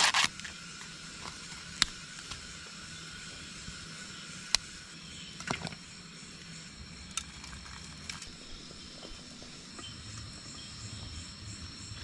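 Steady high-pitched trilling of night insects such as crickets, with a few sharp isolated pops from a wood campfire. A short rustle of corn husk sounds right at the start.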